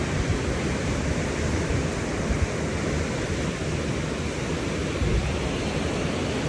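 Steady rush of strong cyclone wind and sea surf, with low gusty rumbling of wind on the microphone.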